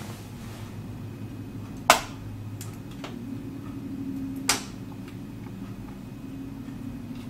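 Graphics card being pushed into a PCI Express slot: two sharp clicks about two and a half seconds apart, with a few fainter ticks between, over a steady low hum. The click is the sign that the card is fully seated in the slot.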